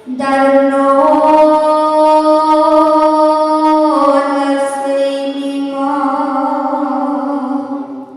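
A traditional song ending on a long held sung note that shifts pitch slightly a couple of times, then fades near the end.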